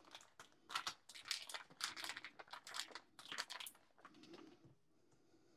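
Foil wrapper of a block of cream cheese crinkling as it is peeled open, a string of faint crackles and rustles over about three seconds, followed by a softer scrape.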